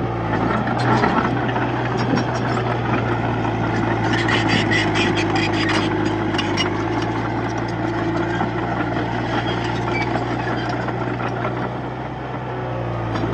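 Crawler bulldozer's diesel engine running steadily under load, with a run of rapid metallic clanking from the tracks about four to seven seconds in.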